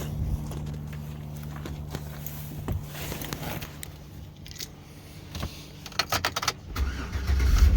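Cold start of a 2008 GMC Yukon's 5.3-litre V8, an engine brought in for lifter noise: a few sharp jangling clicks, then the engine cranks and catches near the end.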